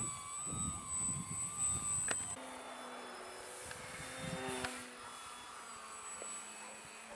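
Brushless electric motor and propeller of a foam RC plane whining in flight, its pitch wavering slightly, over a low rumbling noise. A little over two seconds in, the sound cuts abruptly to a quieter, fainter motor hum.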